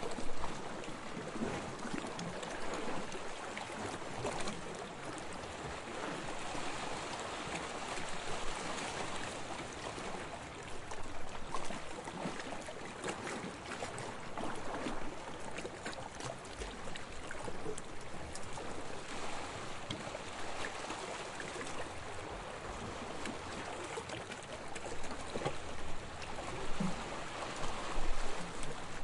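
Sea water lapping and splashing at the water's edge: a steady wash with many small splashes, rising and falling in loudness.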